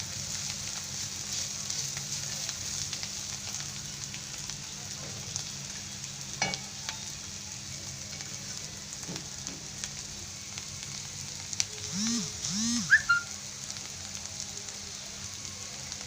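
Bitter gourd chutney sizzling in the pan as it finishes cooking, with a spatula scraping now and then. About twelve seconds in come a few short squeaky chirps, the loudest sounds.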